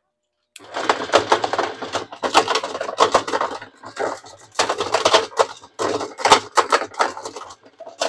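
General Electric top-load washer started through a bypass toggle switch, agitating with a loud, irregular clatter over a low motor hum. The clatter comes from the agitator, which has come loose and knocks about.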